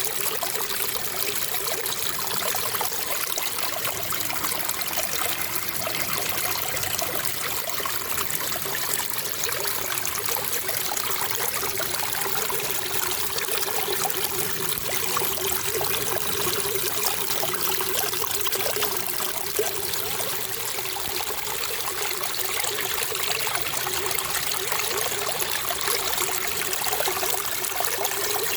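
Water trickling and running steadily, with an even splashing hiss and no pauses.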